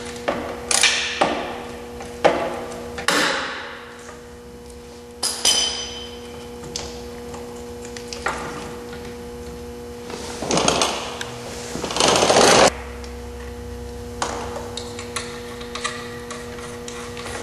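Hand tools at work on metal: wrenches and sockets clinking and knocking at irregular intervals while the auxiliary lights are unbolted, with a brief metallic ring about five seconds in. Two short rasping bursts come near the two-thirds mark, over a steady electrical hum.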